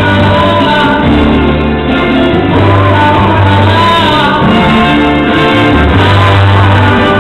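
A singer's amplified voice sings a song over a full symphony orchestra, with strings holding chords beneath the melody, in a live concert hall.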